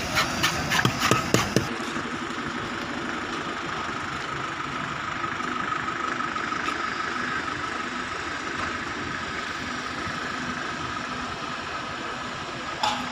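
A few sharp knocks in the first second and a half, then a steady engine drone with a faint thin whine over it, and one short louder burst of noise near the end.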